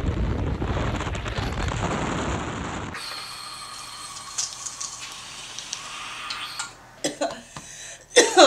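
Heavy wind rumble buffeting the microphone in an open side-by-side off-road vehicle, cut off abruptly about three seconds in. A quieter hiss with faint steady tones follows, and near the end come a few short sharp sounds, the last of them the loudest.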